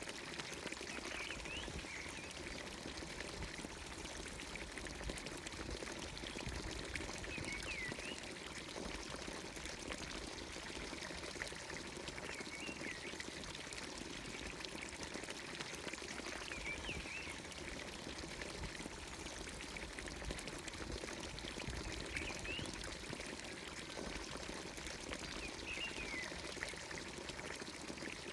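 Water from a village fountain spout pouring steadily into its watering trough, with a bird giving short chirps every four or five seconds.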